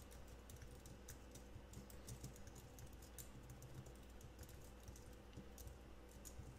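Faint typing on a computer keyboard: irregular keystroke clicks as a line of Swift code is entered.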